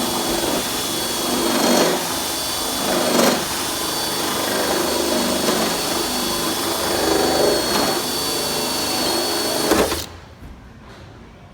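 Electric drill boring a 1¼-inch hole through a car's hood. It runs steadily with a high whine, swelling in level a few times as the bit cuts, then stops suddenly about ten seconds in.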